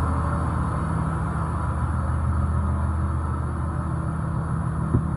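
Caterpillar 3126 diesel engine of a school bus idling steadily, heard from inside the bus, with the steady rush of the dash AC blower fan over it. There is one small click near the end.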